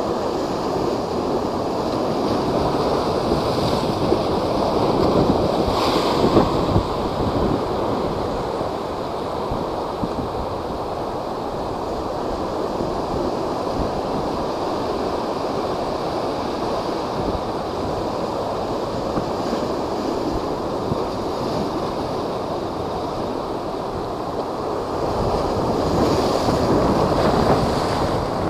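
High storm waves whipped up by a typhoon, surging and crashing continuously, with wind buffeting the microphone. Bigger surges come about five seconds in and again near the end.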